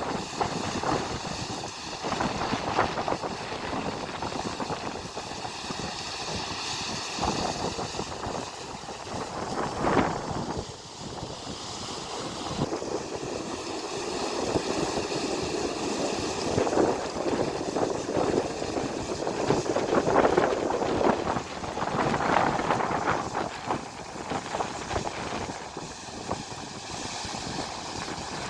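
Steady rush of river water pouring over a weir, with wind buffeting the microphone in uneven gusts.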